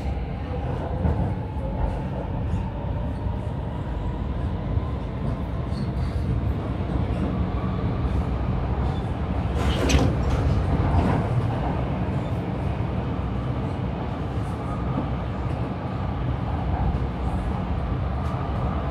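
Stockholm metro train running, heard from inside the carriage: a steady low rumble from the wheels and motors, with a single sharp clack about ten seconds in.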